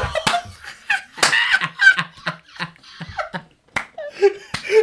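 Several men laughing hard together in short, breathy bursts, with a few sharp hand claps.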